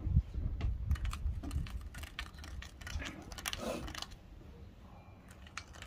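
Irregular light clicks and taps of metal parts and tools being handled during assembly. They are dense for the first four seconds or so, then thin out.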